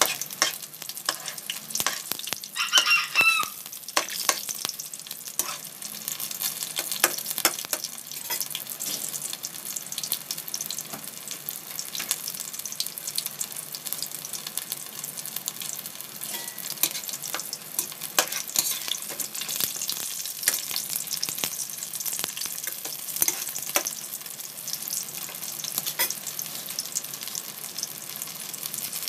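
Lumpia frying in hot oil in a wok: a steady sizzle full of crackling pops, with the occasional scrape of a spatula turning the rolls. A short pitched squeak or call is heard about three seconds in.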